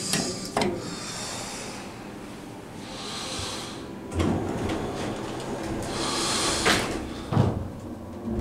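A Schindler elevator's cab button clicks as it is pressed, then the car doors slide shut about four seconds later and end in two knocks as they close.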